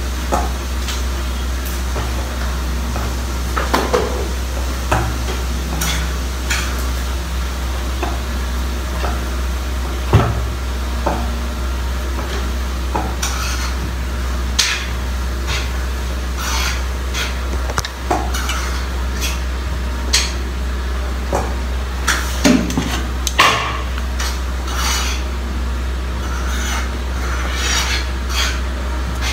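Scattered clinks and taps of a metal utensil against aluminium bowls and a steamer pot as momo dumplings are filled and folded by hand, over a steady low hum.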